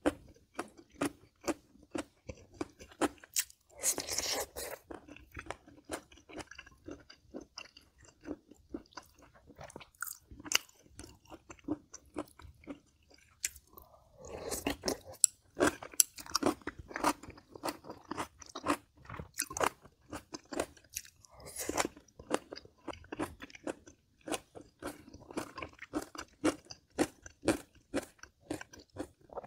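Close-miked chewing of kimchi-braised pork ribs: quick, irregular wet mouth clicks and crunches a few times a second, with a few louder bites now and then.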